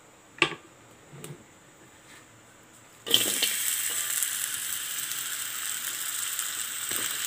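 Sliced onions going into hot oil in a non-stick pan, setting off a sudden steady sizzle about three seconds in. Before that, a sharp knock and a lighter one.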